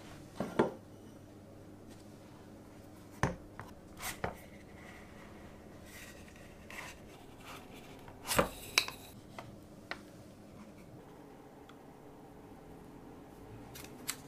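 Sparse handling noises as a metal cake ring is slid down off a no-bake cheesecake onto the tin it stands on: a few light knocks and rubs of metal, with a short cluster about halfway through. Near the end comes the soft sound of the lining film being peeled from the cake's side.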